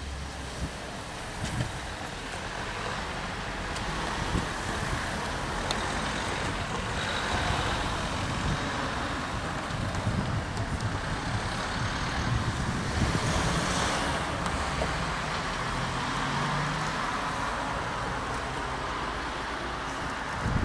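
Road and rail vehicle noise: a car drives past close by around the middle, over the engine of an MR/MRD diesel railcar set approaching.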